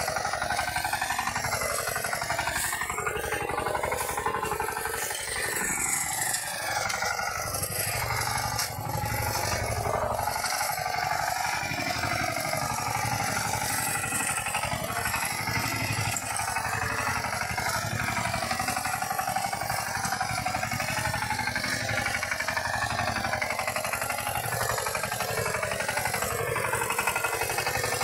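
Two-wheel walking tractor engine running steadily with a fast, even pulse while it pulls a disc plough through the soil.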